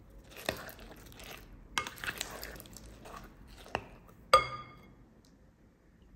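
Metal spoon stirring thick batter with diced apple in a glass bowl: soft wet folding strokes with sharp clicks of the spoon against the bowl. A little past four seconds in, one ringing tap on the bowl, after which the stirring stops.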